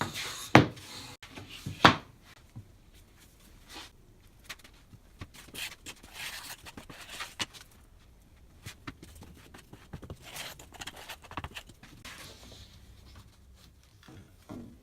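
Scattered light knocks and clicks of wood pieces being handled and set down, with faint rubbing between them; the two sharpest knocks come about half a second and two seconds in.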